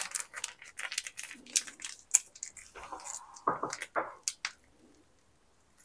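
Plastic sachet of ready-made hot pot seasoning paste crinkling and crackling in the hands as it is squeezed and emptied into a steel pot. The sound stops about four and a half seconds in.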